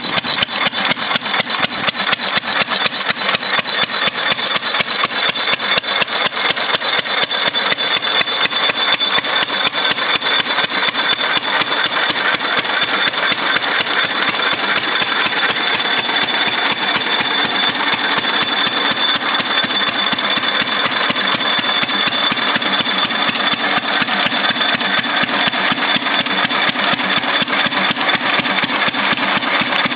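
1928 Fairbanks Morse portable generator set's engine running steadily with a rapid, even beat, a steady high whine over it.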